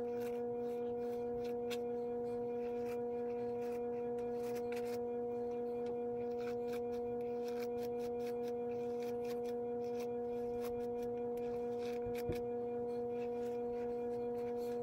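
A single held electronic tone from the background music, one low note with its overtones, steady and unchanging throughout.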